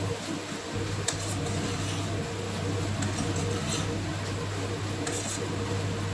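A metal spoon stirring sliced onions and green chillies in a stainless steel pot, with a few light knocks and scrapes of the spoon against the pot, over a steady low hum.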